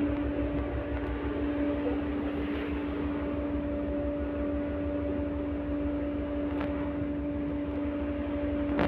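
LVS-86 tram heard from inside the passenger car: a steady low rumble with a constant electrical hum that holds its pitch, and a light click near the end.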